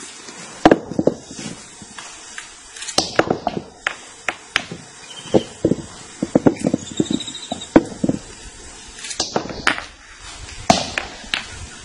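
Capuchin monkey hammering a stone against a wooden log: a string of sharp, irregular knocks, some single and some in quick runs of several strikes.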